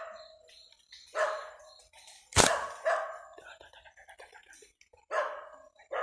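A dog barking in about four short, sharp, unevenly spaced barks, the loudest a little over two seconds in.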